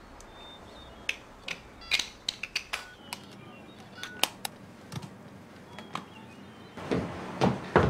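Scattered light clicks and taps over faint room noise, more frequent near the end.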